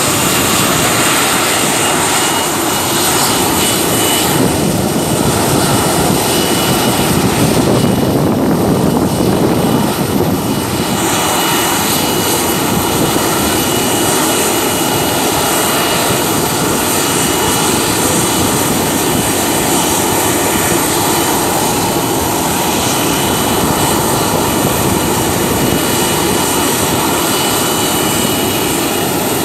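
Boeing 737-800's CFM56 turbofan engines running at idle as the jet starts to taxi: a steady loud roar with a thin, steady high whine on top.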